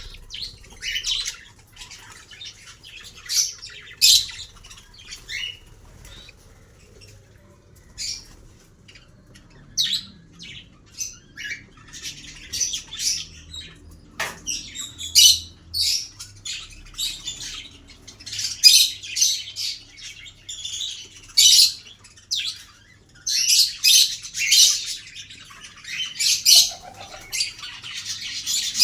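Small pet parrots, such as lovebirds, budgerigars and cockatiels, chirping and squawking in many short shrill calls, busier in the second half.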